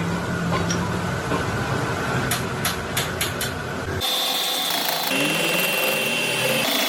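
Workshop machinery running with a low rumble, a steady hum and a few clicks. About four seconds in, the sound changes abruptly to a high, steady whine.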